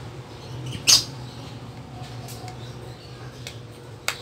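Plastic louver blades of an Isuzu Crosswind dashboard aircon vent clicking as they are fitted into the vent housing: a sharp snap about a second in, a few faint ticks, then another sharp click near the end.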